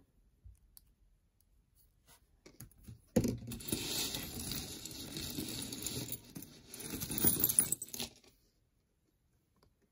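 Hands rummaging through a box of loose costume jewelry, metal pieces jingling and clinking against each other. The jingling starts about three seconds in and stops suddenly near eight seconds.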